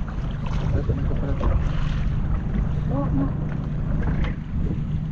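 Wind buffeting the microphone on an open fishing boat, a steady low rumble, with a short voice about three seconds in.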